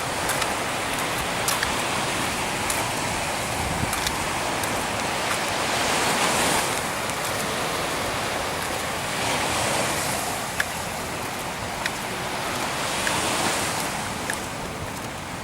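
Sea waves washing ashore, swelling and easing every few seconds, with wind on the microphone and a few sharp clicks.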